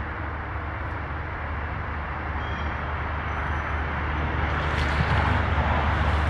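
A steady low rumble under a hiss-like background noise, swelling gradually over the last few seconds.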